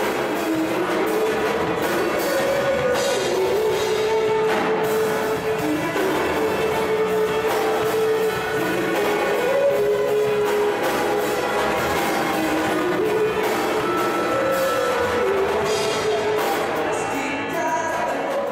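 Rock band playing: electric guitars, bass and drum kit, with a held, stepping melody line carried by a lead vocal.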